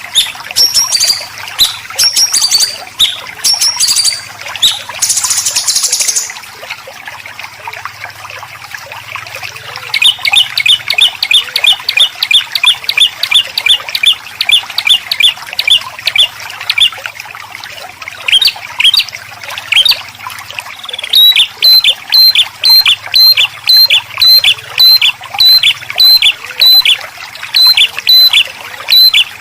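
Songbird singing harsh, rapid 'besetan' phrases: varied bursts at first, then long runs of fast repeated sharp notes, about three a second, turning louder and slightly slower near the end. A faint trickle of water runs underneath.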